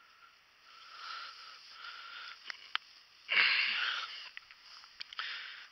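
A person breathing heavily, with short wheezy breaths about a second apart. About three seconds in there is a louder rush of breath or rustling, with a few small clicks around it.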